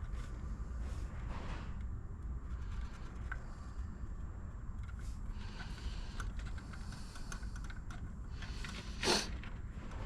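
Small handling noises of a plastic trim panel being marked up with a Sharpie: light clicks and soft scratchy strokes over a steady low hum, with one short louder swish near the end.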